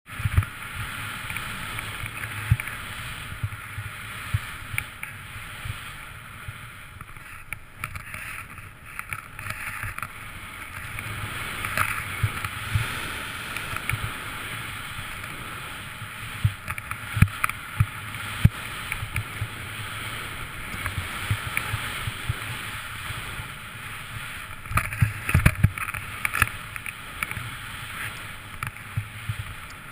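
Snowboard gliding through deep powder snow: a steady rushing swish of the board through the snow, broken by frequent sharp thumps and knocks, with a cluster of them about 25 seconds in.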